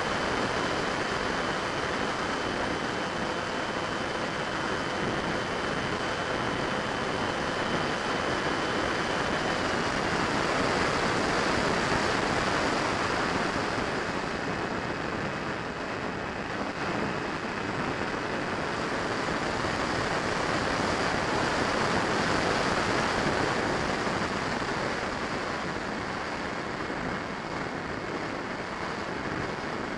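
Steady rush of wind over an onboard microphone mixed with the electric ducted fan of a Freewing 70 mm F-35 RC jet in flight. A faint high whine steps down in pitch a few times.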